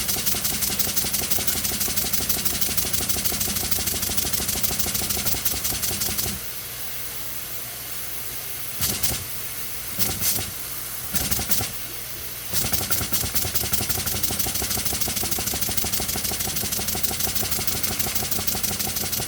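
Small homemade single-cylinder steam engine running with a fast, even chuff of exhaust puffs, on steam pressure so low the gauge reads zero. About six seconds in the puffing stops for roughly six seconds, leaving a steady hiss broken by three short bursts, then the rapid chuffing picks up again.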